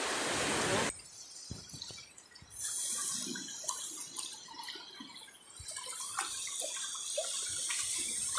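A loud, steady rush of surf cuts off abruptly about a second in. After that, shallow seawater splashes and drips irregularly around the legs of someone wading.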